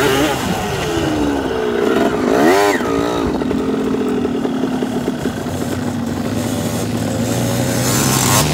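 Dirt bike engines revving on a hill climb, the pitch sweeping up and down sharply about two and a half seconds in, then settling into a steadier drone under throttle.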